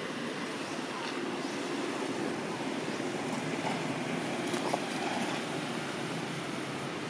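Steady outdoor background noise, a constant rushing sound with no distinct source, with a couple of faint short squeaks about halfway through.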